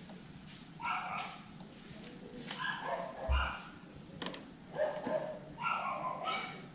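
An animal, likely a dog, barking repeatedly in short calls, roughly once a second. A single sharp click comes about four seconds in.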